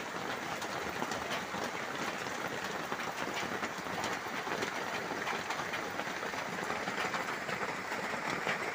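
Light rain falling steadily, a dense, even patter of drops.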